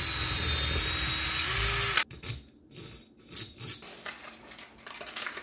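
Cordless drill running as it drills out a bolt hole in an aluminium small-engine cylinder to a smooth bore for a Helicoil thread insert. The motor's pitch dips near the start and comes back up about a second and a half in, and the drill stops abruptly about two seconds in. Light clicks and knocks follow.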